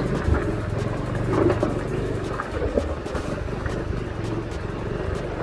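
Motorcycle engine running at low revs, with scattered short clicks and knocks over it.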